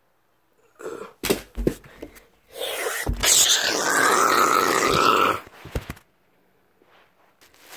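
A few knocks, then a boy's drawn-out theatrical cry lasting about three seconds as the phone swings down, ending in a couple of knocks as it comes to rest.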